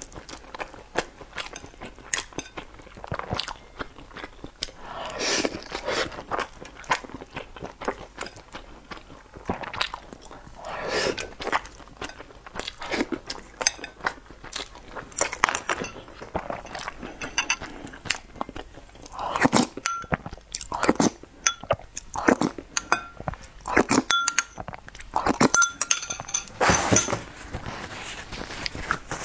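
A person eating close to the microphone: chewing and crunching mouthfuls, with chopsticks clinking against a ceramic bowl, a few clinks ringing briefly in the second half.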